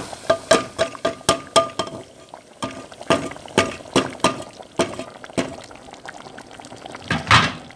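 A spoon stirring freshly poured tadka (fried spiced oil) into boiled masoor dal in a metal pot. It clinks against the pot with a short ring: a quick run of clinks at first, then slower ones, with the wet dal sloshing. A louder, longer sound comes near the end.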